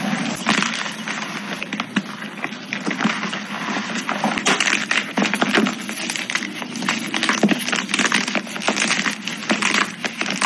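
Blocks of dyed gym chalk being crushed and crumbled between the fingers: a dense, continuous crunching and crackling of many small breaks.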